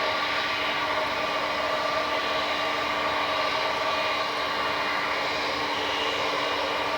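Airbus A321-231's IAE V2500 turbofan engines running steadily: an even jet rush with several steady whining tones, holding level with no rise or fall in pitch.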